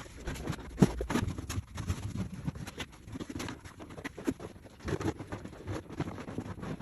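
Sheet vinyl flooring being shifted and rolled up by hand: irregular crinkles, scrapes and knocks.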